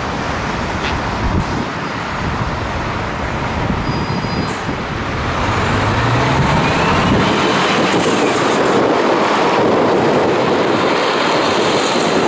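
Scania truck driving on the road, a steady mix of engine and road noise; about five seconds in the engine note climbs and the sound grows louder, as when the truck accelerates.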